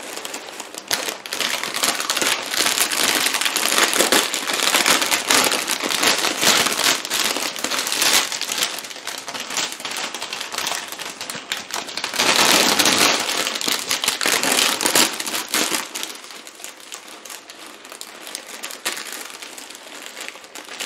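Cellophane, bubble wrap and packing paper crinkling and rustling continuously as hands pull them off a wrapped potted plant. A louder stretch comes just past the middle, and it quietens near the end.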